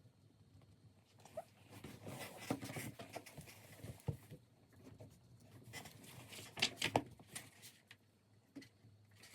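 Faint pen-and-paper handling while drawing: soft rustling with scattered small clicks, and a cluster of sharper clicks about two-thirds of the way through.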